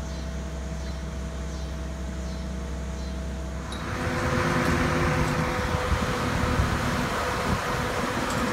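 Boatyard travel lift's engine running with a steady low hum. About four seconds in it gets louder, with added hiss and a higher steady tone.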